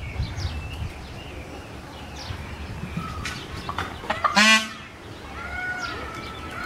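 Male Indian peafowl (peacock) giving one loud, brief scream about four seconds in, with small birds chirping in the background.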